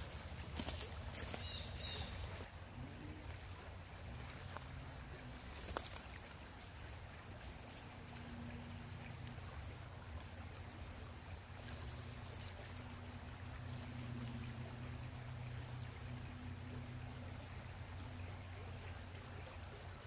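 Quiet outdoor ambience with a low steady hum. A few faint clicks and rustles come in the first two seconds, and one sharp knock about six seconds in.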